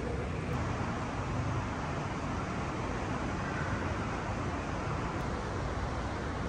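Steady city traffic noise: a constant low rumble of road vehicles with a hiss on top.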